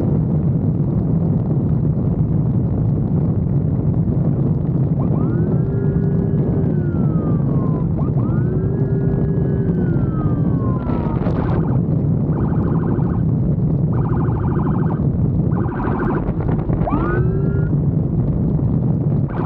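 Emergency vehicle siren over a steady wind-and-engine rumble from a moving motorcycle: two long rising-and-falling wails, then a run of rapid pulsed bursts, and a short rising whoop near the end.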